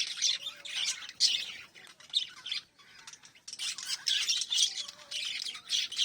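A group of small pet parrots chirping in rapid, overlapping calls, with a short lull a little before halfway before the chatter picks up again.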